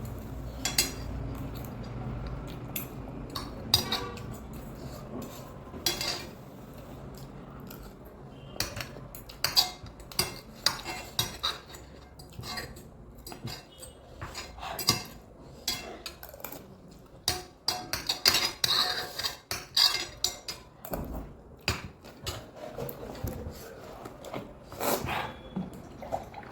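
Eating utensils clinking and scraping against dishware in quick, irregular taps while a meal of ramen is eaten.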